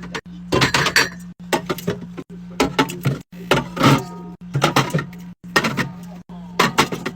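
Drinks and snacks being set into a mini fridge: clusters of clinks, clacks and knocks about once a second, broken by abrupt cuts, over a steady low hum.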